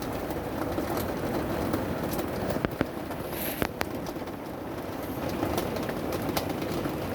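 Steady heavy rain after a hailstorm, a continuous hiss with a few scattered sharp taps of drops hitting nearby surfaces.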